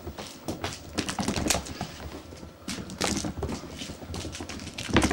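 Irregular clicks, taps and rustles of kittens scampering and pouncing in play, coming in quick uneven clusters.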